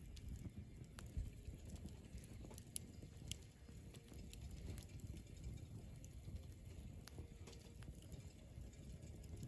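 Wood campfire burning with sparse, irregular crackles and small pops over a low steady rumble.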